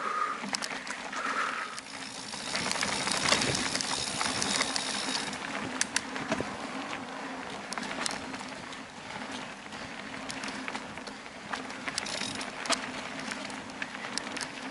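Mountain bike rolling fast over a dirt forest trail: tyres on packed earth and roots, with the bike and camera mount clattering over bumps. A steady low hum runs underneath, and the rattle gets heavier for a few seconds about two seconds in.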